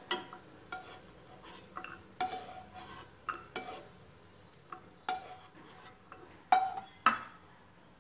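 A spoon scraping and knocking against a nonstick kadai while fried cashews are lifted out of hot oil, at an uneven pace, several knocks with a short ring; the two loudest knocks come near the end. A faint sizzle of the oil underneath.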